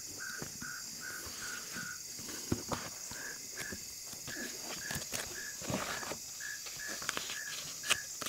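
Crickets chirping in an even rhythm, about two to three chirps a second, over a steady high insect drone. Scattered light rustles and taps, as of papers being handled at a lectern.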